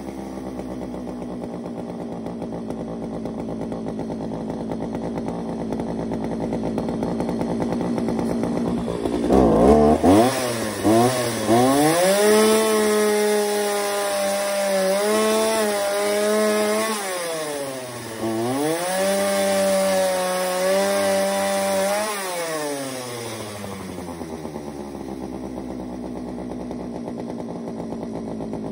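McCulloch Mac Cat 839 two-stroke chainsaw idling, then revved to high speed twice for several seconds each, about nine seconds in and again just after eighteen seconds, before dropping back to a steady idle.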